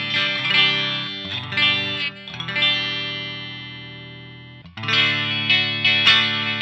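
Greco SE 600 Strat-style electric guitar with three single-coil pickups, played through a Laney VH100R valve amp, on the bridge and middle pickups. Chords are strummed, then one chord is left ringing and slowly dies away. About three-quarters through, louder strumming starts again with the neck pickup added.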